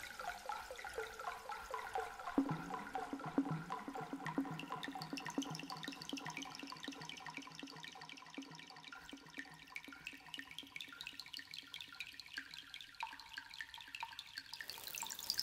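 Water dripping: a quick run of short, pitched plops, several a second, like drops falling into water. Near the end a steady hiss comes in.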